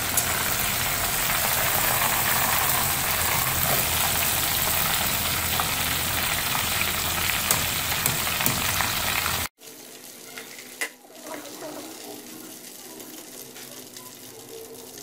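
Batter-coated chicken wings deep-frying in hot oil, a dense steady sizzle. About two-thirds of the way through the sizzle cuts off abruptly, leaving a much quieter crackle.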